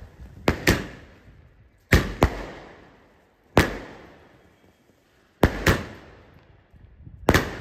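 A 60-shot aerial fireworks cake firing: sharp bangs, mostly in quick pairs, come about every one and a half to two seconds, each trailing off in a fading echo.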